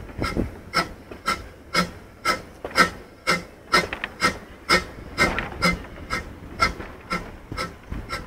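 Small narrow-gauge Hunslet saddle-tank steam locomotive working slowly, its exhaust chuffing in an even beat of about two a second.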